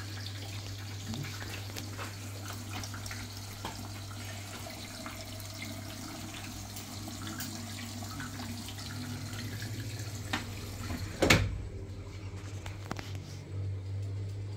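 Water running into a Samsung front-loading washing machine as it fills, a steady hiss over a low hum. About eleven seconds in comes one loud sharp knock, after which the hiss mostly stops.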